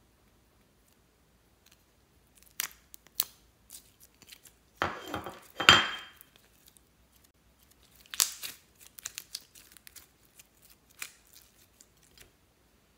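Sticky yellow slime squeezed out of a plastic mold, kneaded and stretched by hand: sharp sticky clicks and pops, a longer, louder crackling stretch about five to six seconds in, then many small scattered pops.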